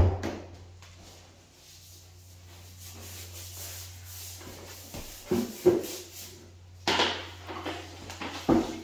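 Knocks and rubbing from hand staining work on a pine plank floor: a sharp knock right at the start, a soft rubbing stretch in the middle, then a few clunks and thuds in the last few seconds. A low steady hum sits underneath.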